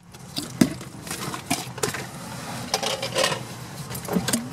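Irregular clicks, taps and rustles inside a car cabin, over a low steady hum.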